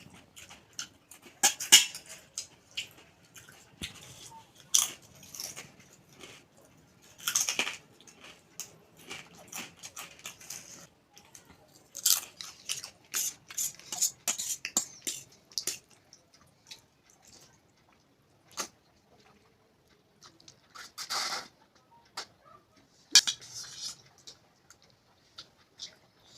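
A person chewing and biting crunchy food close to the microphone. Irregular crisp crunches and mouth sounds come in clusters, with quieter gaps between them.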